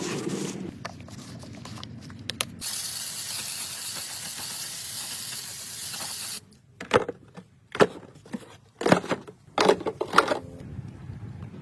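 A pressurised spray hissing steadily for about four seconds, then cutting off. It is followed by a string of sharp knocks and clatter, about six in all.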